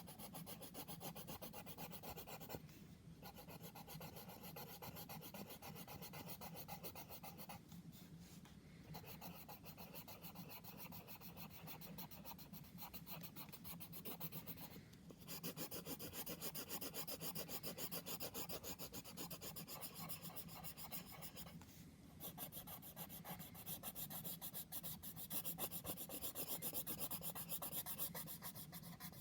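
Drawing tool scratching across paper in rapid back-and-forth colouring strokes, pausing briefly a few times, a little louder in the second half.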